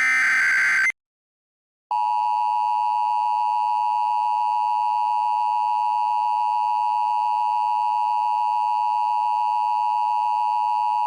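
Emergency Alert System alert sequence: the last of the header data bursts, a harsh digital screech lasting about a second. After about a second's gap comes the steady EAS attention tone, held unbroken for the rest.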